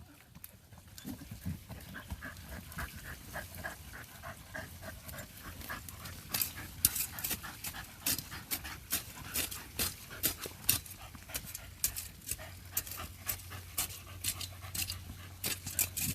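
Dog panting rapidly, then from about six seconds in a fast, irregular run of sharp scratching scrapes as a dog digs at dirt with its claws.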